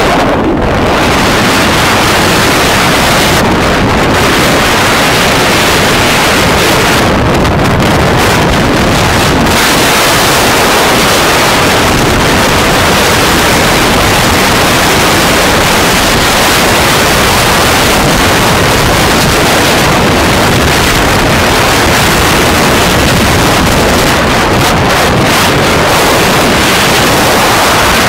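Loud, steady wind rushing over a phone's microphone as the phone is held out on a motorcycle riding at high speed.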